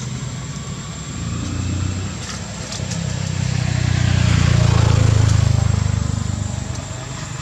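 A motor vehicle engine passing close by: a low hum that grows louder to a peak about five seconds in, then fades.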